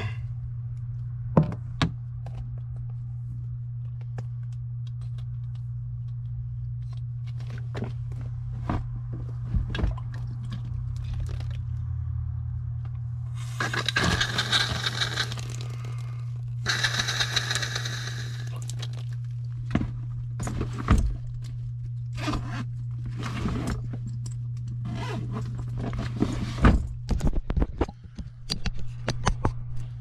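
Scraping and knocking of PVC condensate drain pipe and fittings being worked back together by hand. Two longer scrapes of about two seconds each come near the middle, over a steady low hum.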